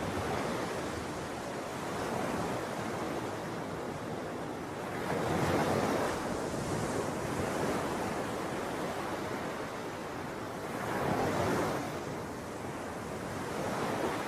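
Ocean waves breaking and washing in as a steady surf wash, swelling louder about five seconds in and again about eleven seconds in.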